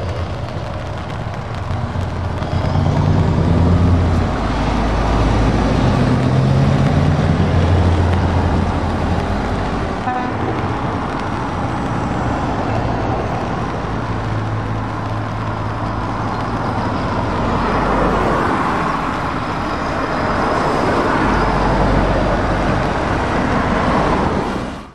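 Heavy trucks and cars driving past on a wet road, with diesel engines running and tyres hissing on the wet surface. A truck's horn toots several times in the first half.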